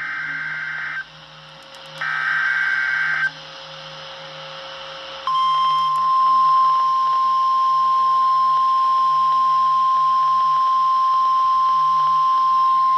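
Emergency Alert System SAME header: two bursts of screechy digital data tones, each about a second long, with a one-second gap between them. About two seconds after the second burst, NOAA Weather Radio's steady single-pitch 1050 Hz warning alarm tone starts and holds. The tone signals that a voice alert follows.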